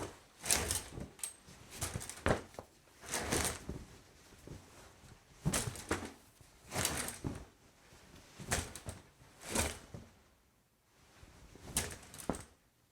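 A shower curtain pulled along its rod and a towel used, heard as a series of about eight short cloth swishes with pauses between them.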